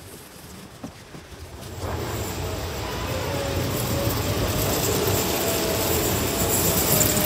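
Snow-clearing wheel loader (Komatsu WA320 with a plow blade) approaching: about two seconds in, its diesel engine and a faint wavering whine come in and grow steadily louder.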